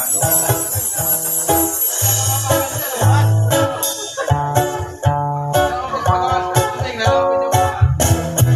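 Instrumental music: plucked guitar over a bass line and a steady beat.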